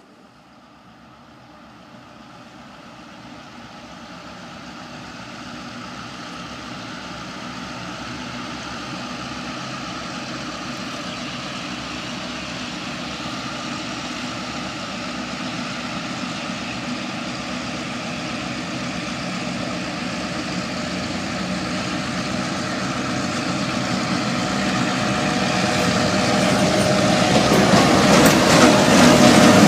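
Diesel locomotives of an approaching train, their engine drone growing steadily louder as the train draws near. Near the end the locomotives pass close by, with wheel-on-rail clicks coming in.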